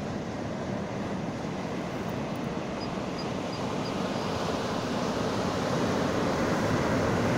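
Ocean surf breaking and washing up a sandy beach: a steady rushing of waves that grows louder toward the end.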